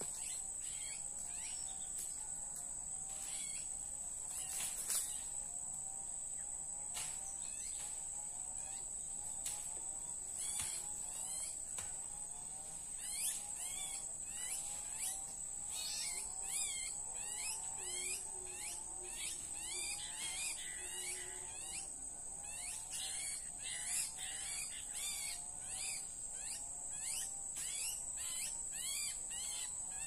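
Bird-call lure recording played through a small portable speaker: a call repeating in a steady rhythm about twice a second, with fast high chirps over a steady high whine.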